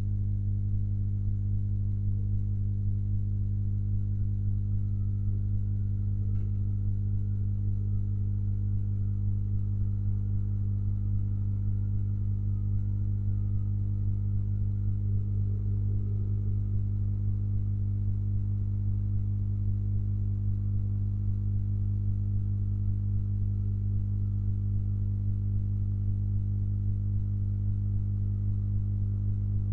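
Steady low electrical hum with a ladder of overtones, unchanging throughout, with a faint click about six seconds in.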